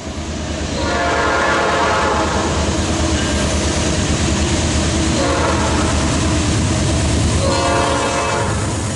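Locomotive's Nathan Airchime P5 horn sounding three chord blasts over the loud, steady noise of the train passing close by. The first blast is the longest, the middle one is fainter, and the last comes near the end.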